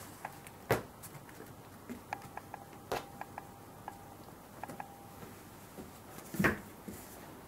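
A cat pouncing and batting at a wand toy on a foam play mat: a few soft taps and thumps, the loudest near the end, with faint light clicks in between.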